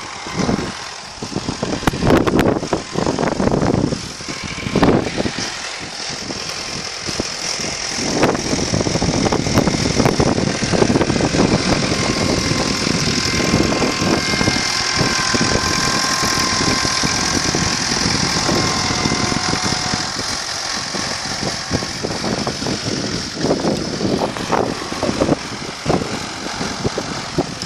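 Tractor engine running, uneven for the first several seconds, then steadier.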